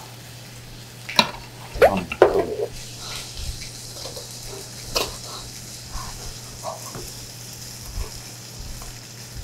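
Pork belly sizzling on a grill, a steady frying hiss that grows stronger about three seconds in. A few sharp clicks and a short burst of the eater's voice come around one to two seconds in.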